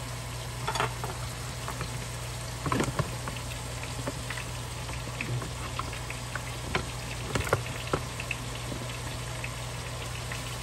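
Ground beef and diced onion sizzling steadily in a stainless steel skillet, with a steady low hum underneath. A few sharp knocks sound at about one second, three seconds and twice near eight seconds.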